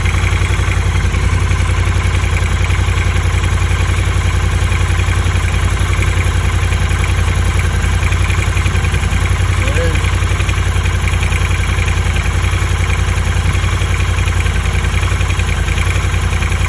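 2022 Triumph Scrambler 1200XC's 1200 cc parallel-twin engine idling steadily with a knocking. The knock appeared right after a dealer service: the dealer blames the valves, while the owner suspects over-revving or wrong oil.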